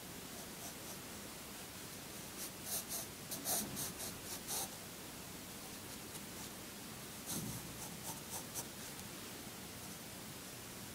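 Graphite pencil sketching on paper: short scratchy strokes in two flurries, one starting a little over two seconds in and another about seven seconds in, over a steady faint hiss.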